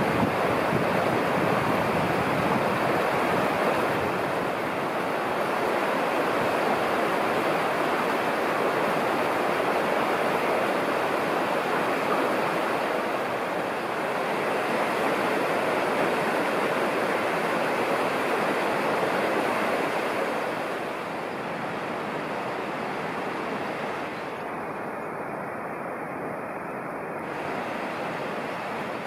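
Steady rush of running, splashing water, a little quieter from about two-thirds of the way in.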